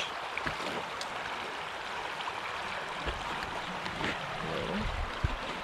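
Creek water running over a shallow riffle: a steady rushing hiss, with a few low bumps partway through.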